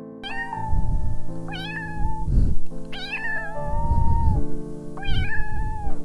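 A cat meowing four times, each call between half a second and a second long, over piano music.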